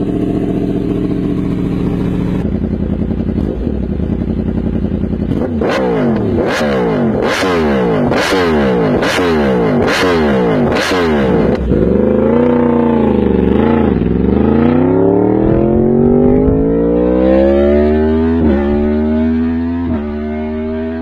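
Yamaha R1's crossplane inline-four engine idling, then blipped through about seven quick revs, then pulling away under hard acceleration, its pitch climbing with a couple of upshifts near the end.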